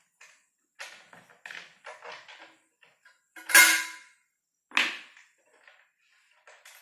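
Loose metal parts of a seat suspension's shock mounting (rod end, pin, U-bolts) clinking and clanking as they are taken off and handled, with one loud ringing metallic clank about three and a half seconds in and another sharp knock just before five seconds.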